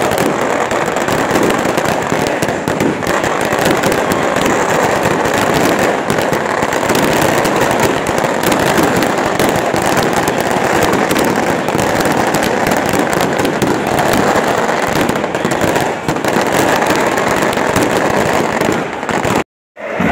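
Dense, continuous crackling of firecrackers and fireworks going off in rapid succession. The sound breaks off into a moment of silence just before the end.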